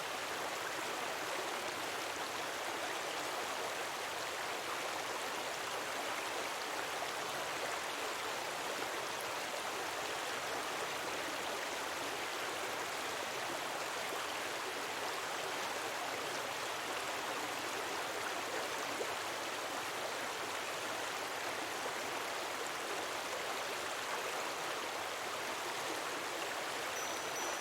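Steady rushing of running water, like a flowing stream, even and unbroken.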